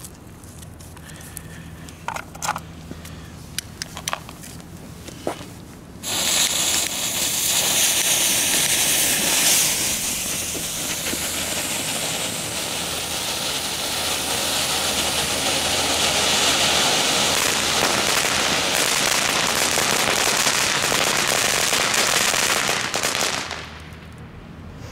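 Small cone-shaped ground fountains spraying sparks. After a few light clicks, a sudden loud, crackling hiss starts about six seconds in, runs steadily, and stops shortly before the end.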